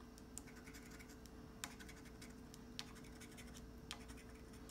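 Faint scratching at the coating of a scratch-off lottery ticket, with a few sharp scrapes about a second apart.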